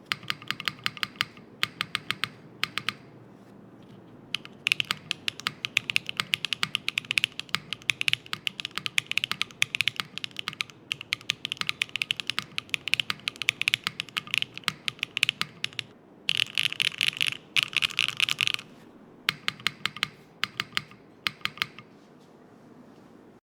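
Typing on a Slate Zero custom mechanical keyboard: runs of quick key clacks broken by short pauses, with a dense flurry of very fast keystrokes about two-thirds of the way through. It stops abruptly at the end.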